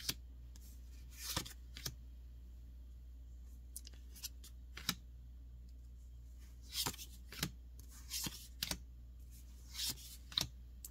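Magic: The Gathering trading cards being slid and flipped by hand, about ten short papery swishes and snaps at irregular intervals, over a faint steady low hum.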